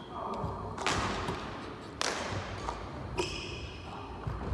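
Basketball hits in a Mikan under-the-basket layup drill: three sharp thuds about a second apart, each with a short ring, and a brief high squeak with the third.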